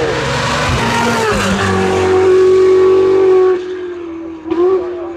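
Novitec-tuned Ferrari 488 Spider with straight-pipe exhaust, its twin-turbo V8 accelerating hard as it pulls away: a loud, high, steady note that drops off about three and a half seconds in, with a short burst of revs near the end.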